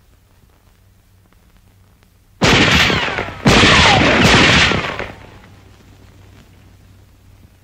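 Two loud blasts about a second apart, the first at about two and a half seconds in, each dying away over a second or so: explosions.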